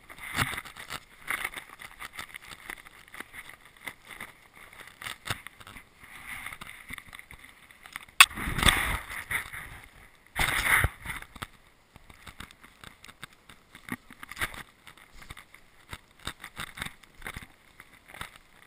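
Handling noise on an action camera: scraping, rustling and knocking against its housing as it is moved about, with a sharp click about eight seconds in and louder rustling bursts just after it and again about two seconds later.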